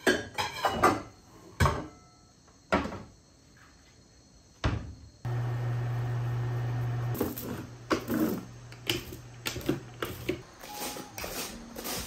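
Kitchen dishes and cupboard doors clattering: a quick run of knocks and clinks in the first second, then single knocks. About five seconds in, a steady low hum starts under further clinks and rustles and stops about five seconds later.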